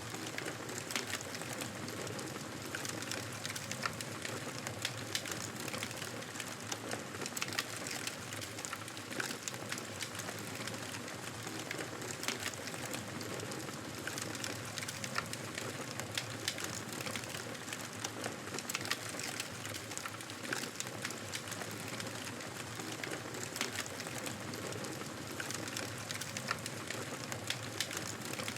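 Wood fire crackling in a fireplace: a steady hiss with frequent irregular sharp pops and snaps.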